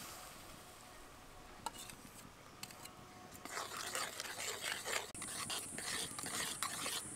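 Mango pulp heating in a pan, quiet at first, then about halfway in starting to bubble and sputter with a dense crackle and a thin steady hiss: the pulp coming to the boil as its water cooks off.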